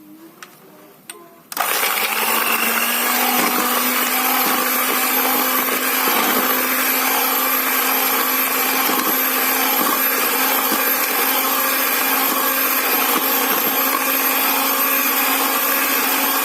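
Electric mixer switched on about a second and a half in, then running steadily at one speed, beating eggs and sugar with vanilla for a sponge cake batter.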